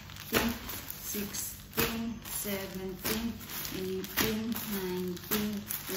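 Plastic-wrapped clothing packages rustling and slapping down onto a pile as they are handled one at a time, about once a second, over a soft melody.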